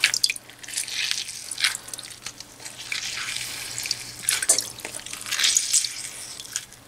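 A halved orange squeezed by hand over a bowl: wet squelches of pulp and peel, with juice dripping and splashing into the bowl in irregular bursts about every second.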